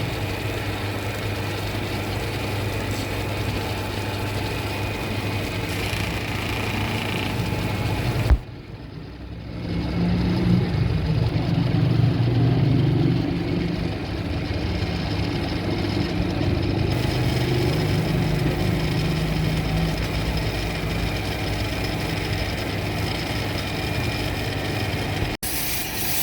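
A workshop machine's motor running steadily with a low hum. It drops out abruptly about eight seconds in and again briefly near the end.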